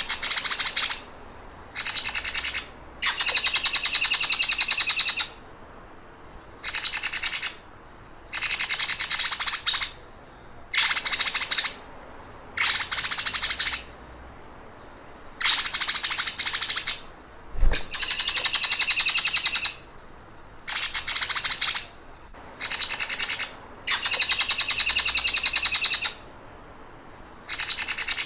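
Songbird repeating fast, sewing-machine-like rattling trills, each lasting up to about a second and a half, separated by short pauses. It is a training recording for cage birds to copy.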